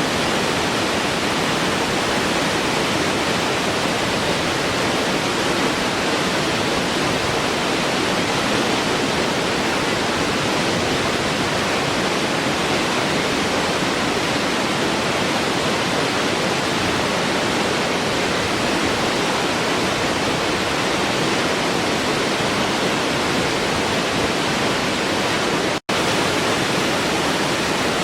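Waterfall rushing steadily, an even unbroken roar of falling water. Near the end it cuts out to silence for a split second and comes straight back.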